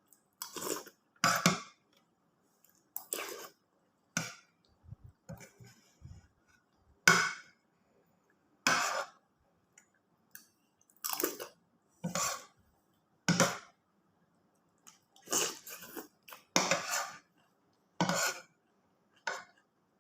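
Eating close to the microphone: a spoon clinking on a plate or bowl, and mouthfuls being chewed. These come as short, separate bursts every second or two.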